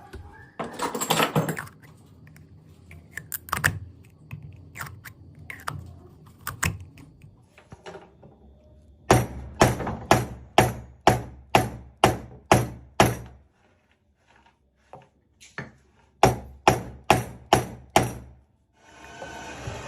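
Hammer with a hot-glue-filled conduit sleeve over its head, hammering in steady blows about two and a half a second apart. The blows come in two runs: about ten, then after a pause of a few seconds about six more. Lighter scattered knocks and clicks come before the first run.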